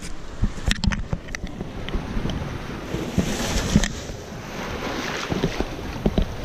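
Surf washing over rocks and splashing directly onto a waterproof action camera at the waterline: a rushing wash that swells about halfway through, with frequent sharp knocks and clicks of water striking the camera housing.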